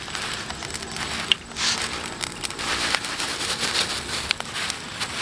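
Battered bamboo shoot frying in hot oil in a pan, sizzling steadily with crackles and a few sharp pops of spattering oil.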